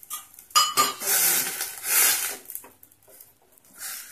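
A metal utensil clinks twice against an aluminium cooking pot. Then comes a rough scraping noise as rice flour is worked into boiling water in the pot, with a shorter scrape near the end.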